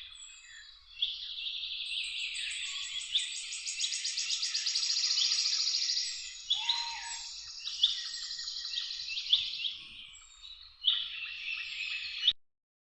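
Several songbirds singing at once: a dense chorus of chirps and rapid trills, cutting off suddenly near the end.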